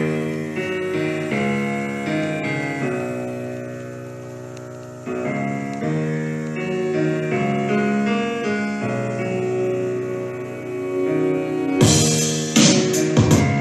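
Piano-led keyboard music played back through a homemade centre-channel speaker built with two mid-range drivers, a tweeter and a woofer, as a sound test. Sustained chords change every second or so, and sharp drum hits come in near the end.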